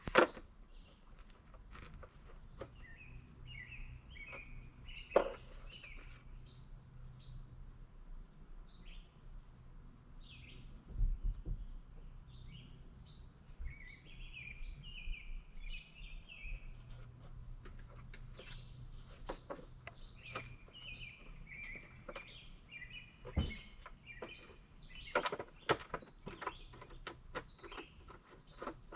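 Birds chirping and singing in short repeated phrases, with a few sharp knocks and clicks scattered through.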